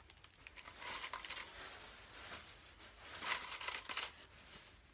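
Moss being pressed and handled against a chicken-wire form: rustling and crinkling in two louder bursts, with scattered light metallic clicks.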